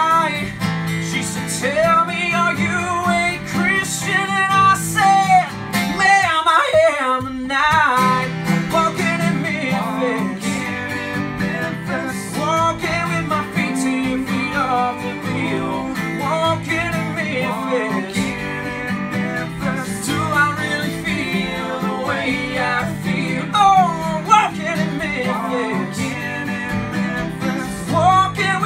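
Two acoustic guitars strumming chords under a male lead vocal singing a slow country-pop song, with one wavering held note about a quarter of the way in.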